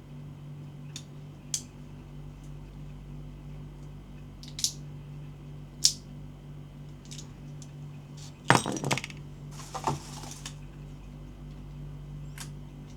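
Handling of a gel blaster and its packaging: scattered light clicks and taps of hard plastic parts, a short clattering rattle about eight and a half seconds in, and a brief rustle a second later. A steady low hum runs underneath.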